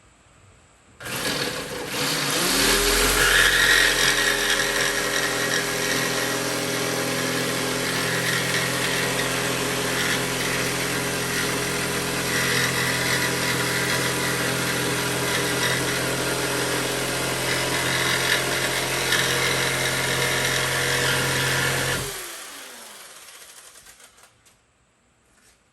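Electric circular saw starting up with a rising whine about a second in, then running and cutting through a board for about twenty seconds. It winds down with a falling pitch near the end.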